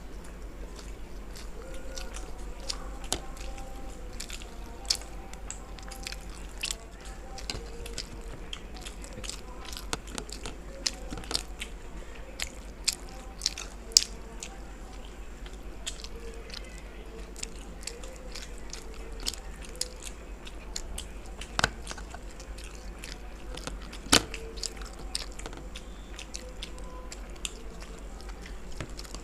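People eating chicken momos quickly: biting, chewing and wet mouth sounds with many scattered sharp smacks and clicks, a few much louder than the rest.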